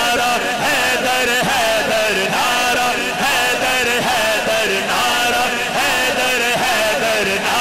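A man's amplified voice chanting a short devotional refrain, unaccompanied, repeating the same melodic phrase about once a second.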